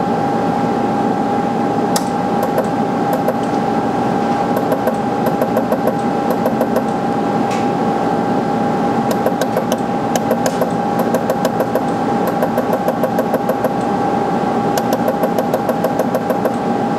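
Sunstone Orion LZR 100 benchtop laser welder firing pulses onto a silver ring shank as silver filler wire is fused into a crack: runs of quick sharp ticks, several a second, over a steady hum.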